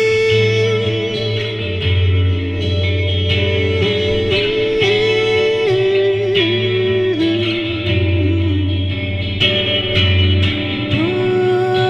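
Band music with no singing: a lead guitar plays long notes that bend and waver with vibrato, stepping between a few pitches over the rest of the band.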